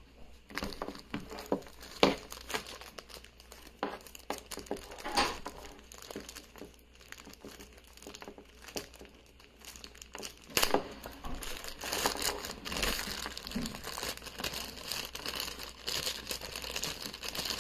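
Thin clear plastic bag crinkling as an aquarium heater's cord and controller are unwrapped and handled, with scattered rustles and small clicks. The crinkling comes in louder bursts about two-thirds of the way in and again near the end.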